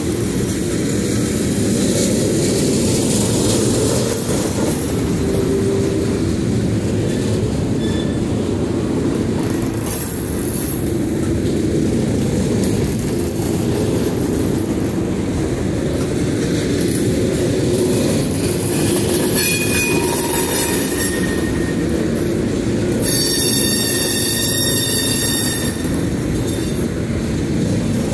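Freight cars of a Norfolk Southern train (gondolas, open hoppers and an autorack) rolling past close by, with a steady rumble of wheels on rail. Brief high wheel squeals come about a third and two-thirds of the way through, and a longer squeal near the end, as the wheel flanges grind through the curve.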